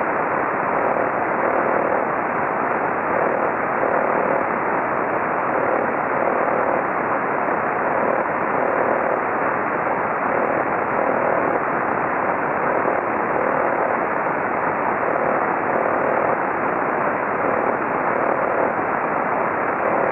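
Radio receiver on the 28 MHz (10-metre) band giving a steady hiss of static, with a faint tone that pulses on and off about once a second, irregularly. An unidentified signal: it could be a local interference source or a band-wide one.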